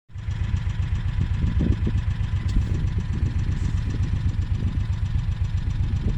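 Vehicle engine idling steadily, with a rapid low pulsing.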